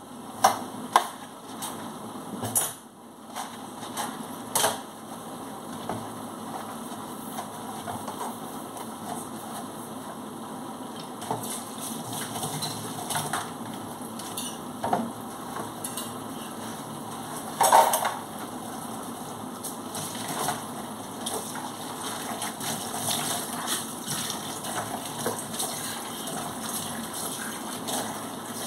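Dishes being washed by hand in a stainless steel sink: a tap running steadily, with dishes and cutlery clinking and clattering now and then. The loudest clatter comes about 18 seconds in.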